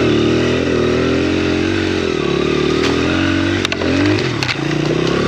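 Honda XR100's small four-stroke single-cylinder engine running under load on hard, icy snow, its revs wavering, dipping and picking back up a little before four seconds in. A few short, sharp clicks sound over it in the middle.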